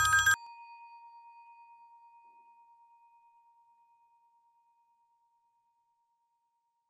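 A bell ringing out: a loud, clanging many-toned ring cuts off about a third of a second in, leaving one clear tone that fades with a slight wavering over about three seconds, then near silence.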